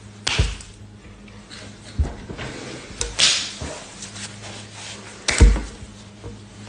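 Cloth rustling and swishing as a blazer is pulled off, mixed with several sudden thumps and knocks of hands and sleeves against the counter or phone. The loudest thump comes about five and a half seconds in. A steady low hum runs underneath.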